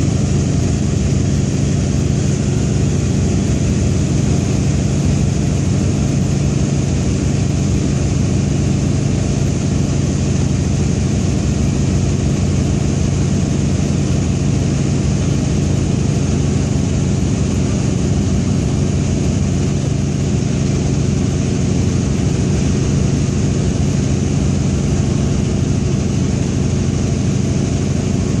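Antonov An-2's nine-cylinder radial engine and propeller running steadily in flight, a constant loud low drone with no change in pitch.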